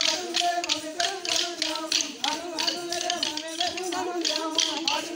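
Wooden dance sticks of the Goan Tonya Khel stick dance clacking together in a quick, steady rhythm, several strikes a second, with a group of voices chanting over them.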